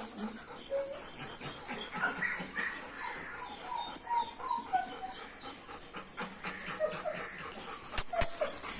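Dogs in a yard, one whining softly in short, wavering high notes, with two sharp clicks near the end.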